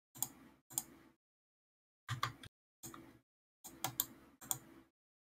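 Computer mouse and keyboard clicks, a handful of short sharp taps spaced unevenly.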